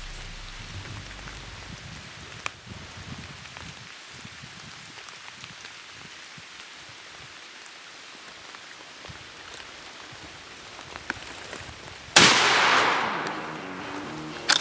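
Rain pattering steadily, then a single loud shotgun blast about twelve seconds in, its report fading away over a couple of seconds: the shot at a spring gobbler.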